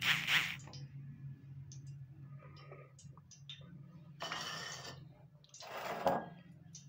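Hand breading a chicken-and-potato cutlet. A short wet squelch in the beaten egg comes at the start, then two longer gritty rustles of breadcrumbs in a glass bowl about four and six seconds in as the crumbs are pressed on. Light clicks fall between them, over a low steady hum.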